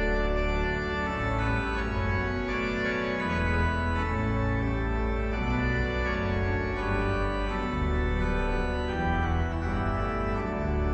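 Two-manual electronic home organ set to a pipe-organ sound, playing a piece in D major: full sustained chords over deep bass notes, the harmony changing every second or two.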